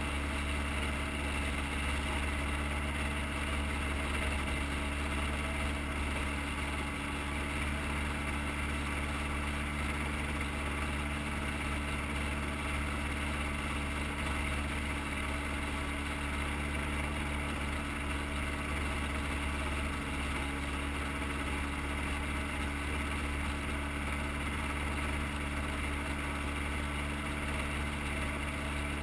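Gyrocopter engine idling steadily on the ground, an even, unchanging drone.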